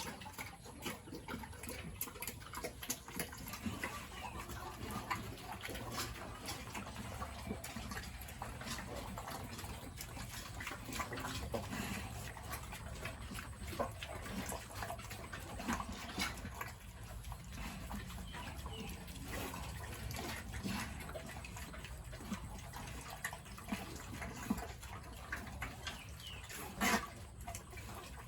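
Pigs in their pen, with many small wet clicks and splashes scattered over a low steady hum.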